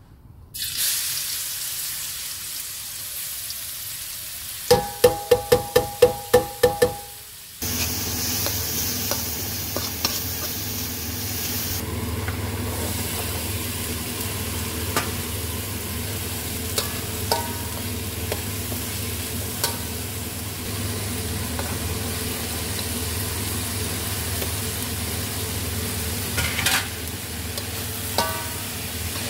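Stir-frying in a metal wok: hot oil sizzling. About five seconds in come some nine quick, evenly spaced ringing metal knocks, typical of a spatula tapped on the wok. From about eight seconds a louder, steady sizzle goes on as chilli paste, leunca and petai fry, with occasional clinks and scrapes of the metal spatula stirring, over a steady low hum.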